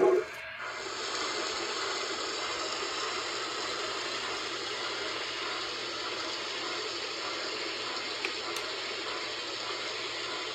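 Steady hiss of steam from the PCM Big Boy 4-8-8-4 model locomotive's sound, starting just under a second in and holding evenly for about ten seconds.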